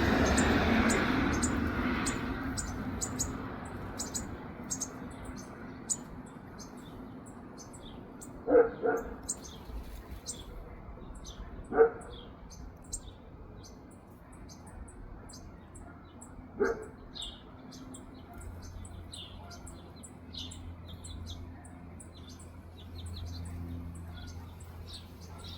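Baby birds cheeping at feeding time: many short, high-pitched chirps in quick irregular succession. A rushing noise fades out over the first few seconds, and three louder, lower calls stand out about a third of the way in, near halfway and about two-thirds in.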